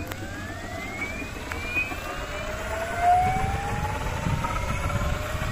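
Electric Roban 800-size Airwolf scale RC helicopter spooling up after arming: the motor and drive whine rises steadily in pitch as the main rotor gathers speed. A low rumble joins about halfway through.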